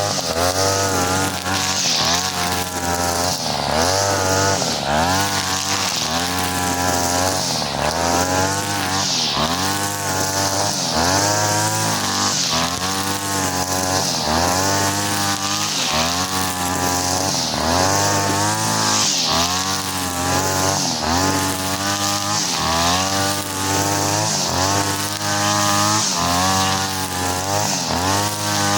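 43cc two-stroke brush cutter with a four-line 2.5 mm nylon head, running at high revs and cutting grass. The engine speed sags and recovers over and over, roughly once a second, with a high whir from the spinning line.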